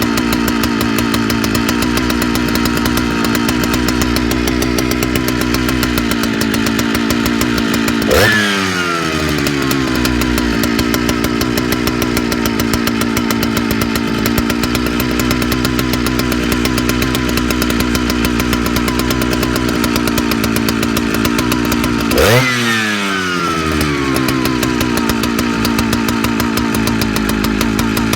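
Big vintage Jonsered two-stroke chainsaw idling, revved sharply twice, about eight seconds in and again past twenty seconds, each time dropping straight back to idle.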